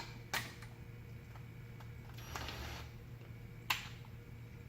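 A few sharp clicks and taps of a hand tool and metal fan parts being handled, with a short whir about two and a half seconds in, over a steady low hum.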